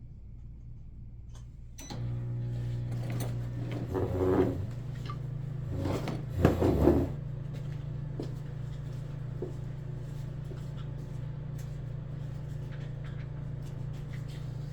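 A steady low hum comes on about two seconds in and keeps going. Over it are two short spells of clattering handling noise, around four seconds and six to seven seconds in, the louder being the second, as paintball gun parts are handled during assembly.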